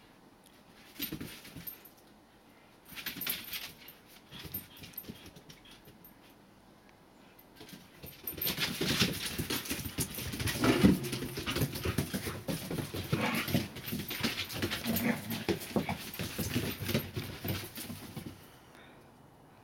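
Two dogs play-fighting, vocalizing at each other amid the scuffle of their paws on a wooden deck. Short bouts about one and three seconds in, then a continuous tussle from about eight seconds in that stops shortly before the end.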